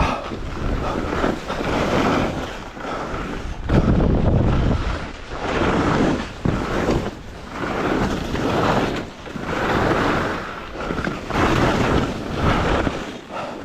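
Wind buffeting an action camera's microphone during a ski run, mixed with the hiss of skis on snow, swelling and fading every second or two.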